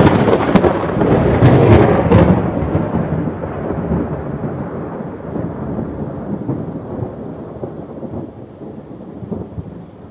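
A loud thunderclap with sharp crackling in the first two seconds, then a long rolling rumble of thunder that slowly fades away.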